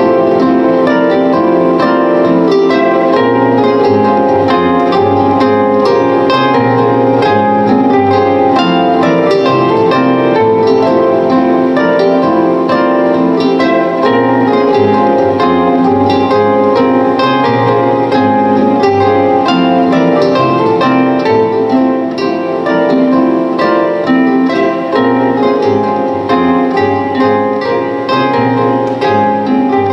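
Solo plucked-string instrument playing a dense, continuous stream of quick plucked notes that ring into each other.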